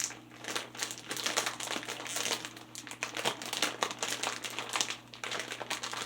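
Plastic snack bag of cheese puffs crinkling as it is handled, in irregular crackles with brief lulls.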